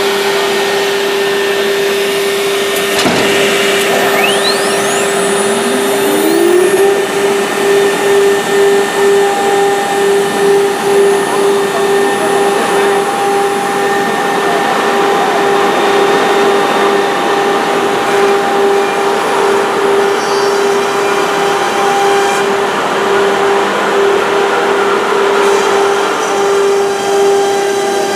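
Woodworking machine running with a steady whine. About four seconds in, a motor spins up, its pitch rising until it merges with the whine, and for several seconds afterwards the level pulses about twice a second.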